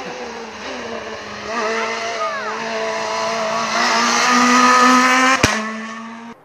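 Rally car engine coming round a hairpin and passing at speed, the revs rising and falling through the bend, then climbing to a loud pull just before a single sharp crack about five seconds in. The sound cuts off suddenly near the end.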